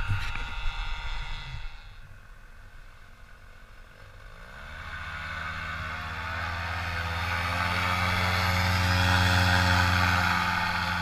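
Paramotor's two-stroke engine coming in about four seconds in, rising in pitch and then holding steady while growing louder, after a few knocks in the first two seconds.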